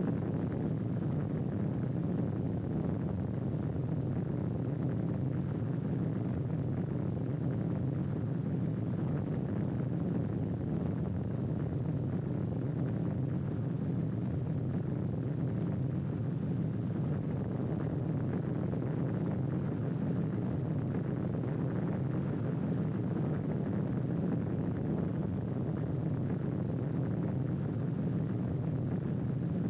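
A steady low rumble that holds an even level throughout, with no separate blasts, breaks or changes in pitch.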